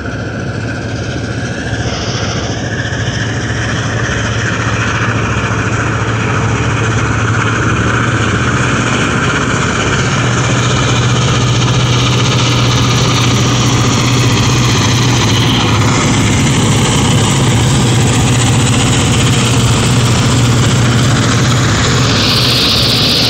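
Two diesel freight locomotives running as they pull a freight train past, a steady low engine drone and rumble that grows louder over the first few seconds, then holds. A brief high-pitched sound comes near the end.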